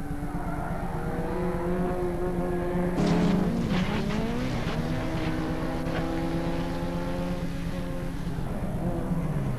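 Race car engines revving, several at once, their pitch rising and falling. About three seconds in comes a burst of crunching impacts from a car rolling over.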